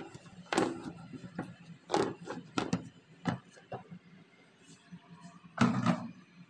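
Half a dozen knocks and clunks of handling, the loudest near the end, over the low steady hum of an electric steam sterilizer heating its water toward the boil.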